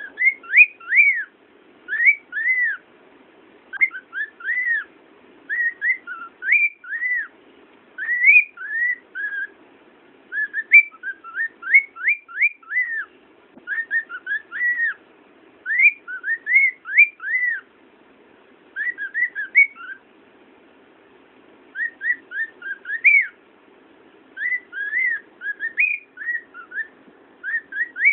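Cockatiel singing: a long run of short whistled notes that rise and fall, in quick phrases with brief pauses between them.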